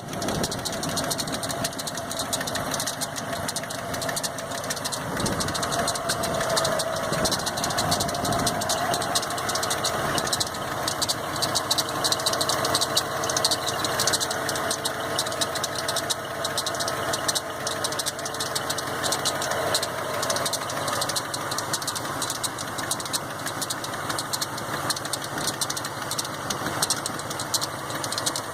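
1990 Ford F-150's engine idling with a drive belt squealing, a wavering squeal that fades out about twenty seconds in.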